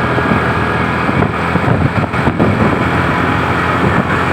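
A large vehicle's engine running steadily, a dense low drone with road noise around it.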